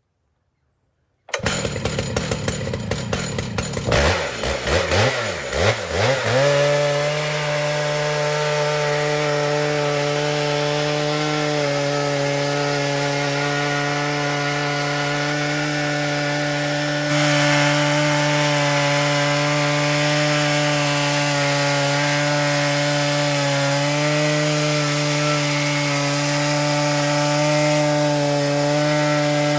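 A chainsaw in an Alaskan mill, cutting in after about a second of silence, revving up and down for a few seconds, then holding a steady high-throttle drone as it rips lengthwise through a log.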